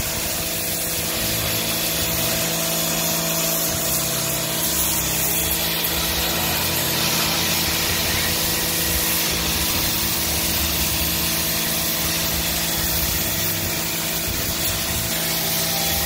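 Electric pressure washer running steadily, its motor and pump humming under the hiss of the high-pressure water jet spraying against a tiled wall.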